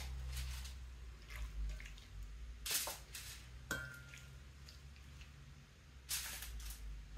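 Seasoned raw chicken thighs being handled and laid on a foil-lined baking tray: soft wet squishing, with short rustles about three seconds in and again near the end. A steady low hum runs underneath.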